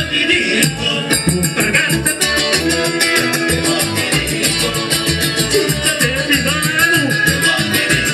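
Live band music: electric guitars over a steady shaker rhythm, with a lead singer's voice.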